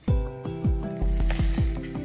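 Background music with a beat: deep bass drum hits that slide down in pitch under sustained notes, coming in suddenly at the start.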